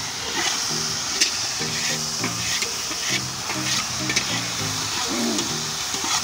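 Food sizzling and frying in a large iron karai while a long metal spatula stirs it, scraping and clinking against the pan about twice a second.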